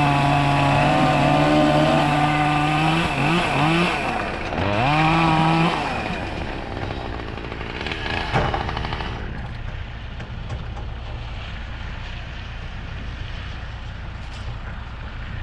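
Two-stroke chainsaw running at high speed, its pitch dipping twice about three seconds in, revving once more and then dropping away about six seconds in. A single sharp knock follows a couple of seconds later.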